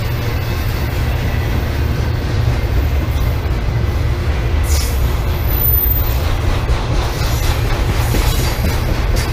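BNSF intermodal freight train rolling past with a steady, heavy low rumble of wheels and cars, and a brief high-pitched squeal about halfway through.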